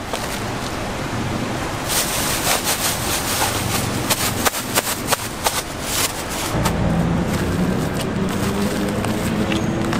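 A run of sharp clicks and knocks, then a motor vehicle's engine running with a low, steady hum from about two-thirds of the way in.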